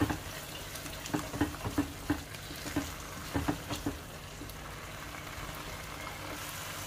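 Mashed eggplant bharta sizzling in a kadhai on full flame while it is stirred, the utensil knocking and scraping against the pan about ten times in the first four seconds, then a steady frying sizzle.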